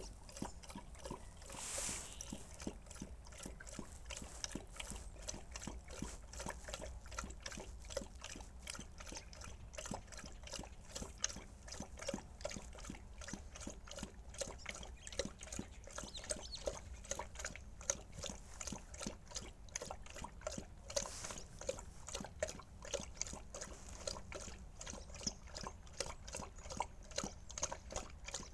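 Bernese mountain dog lapping water from a plastic tub, a quick, steady run of wet laps and splashes.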